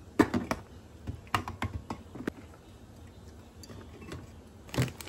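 Light, irregular clicks and taps of food packages and containers being handled and set down: several in the first two seconds or so, then a cluster near the end.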